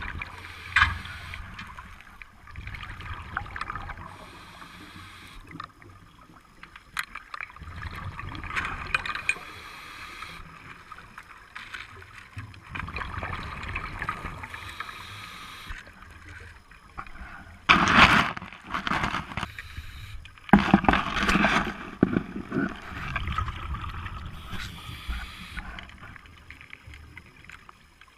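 Scuba diver breathing through a regulator underwater: hissing surges and bubbling gurgles that come and go every few seconds, the loudest two bursts about two-thirds of the way through.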